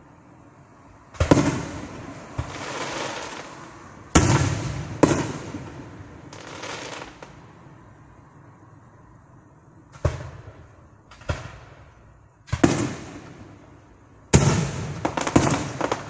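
Aerial fireworks bursting: a series of about eight sharp booms at uneven intervals, each fading out over a second or so, with several bursts in quick succession near the end.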